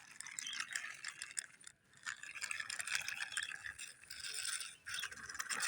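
Plastic toy vehicle rattling and clicking as it is handled and moved about, a dense clatter with two short breaks.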